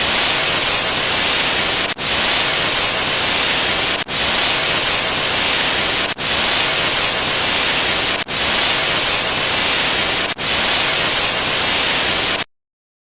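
Loud static, a white-noise hiss sound effect repeated as six back-to-back stretches of about two seconds each, with a brief break between them. It cuts off abruptly into silence near the end.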